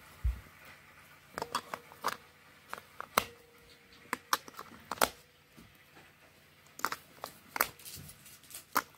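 AA batteries being handled and pressed into the plastic battery compartment of a Furby toy: an irregular string of sharp clicks and taps, with a low knock about a quarter of a second in.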